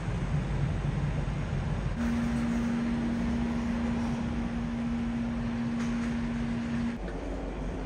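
Steady mechanical drone around a docked ferry, with some wind. A single steady hum tone starts abruptly about two seconds in and stops abruptly about seven seconds in.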